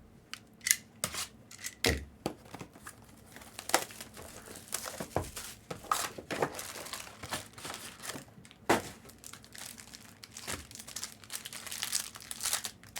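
Plastic trading-card pack wrappers being torn open and crinkled, with a run of irregular sharp crackles and snaps.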